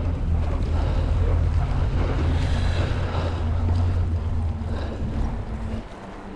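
Wind rumbling on the microphone while mountain bike tyres crunch over fresh snow. The low rumble drops away near the end.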